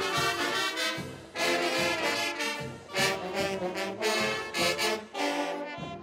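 Marching band brass section, trombones and trumpets, playing loud chords in short punchy phrases with brief breaks between them.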